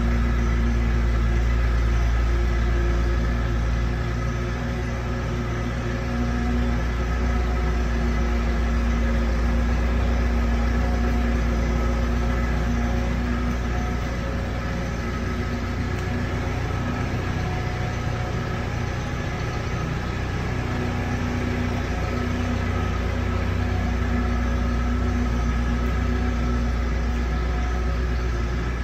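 A steady mechanical hum, like an idling engine, with several held tones. It eases off slightly about four seconds in and then carries on unchanged.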